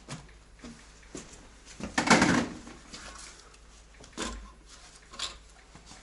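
Workshop handling noises: a loud clatter lasting about half a second around two seconds in, then two shorter knocks, as parts and tools are moved around the removed engine.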